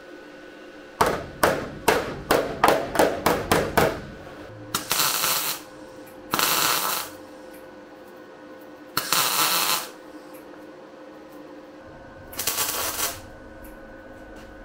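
Workshop tool sounds: a quick run of about nine sharp knocks or rattles, then four short hissing bursts of under a second each, over a steady background hum.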